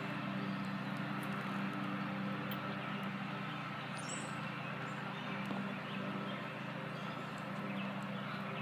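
Steady low machine hum under a faint hiss, unchanging throughout.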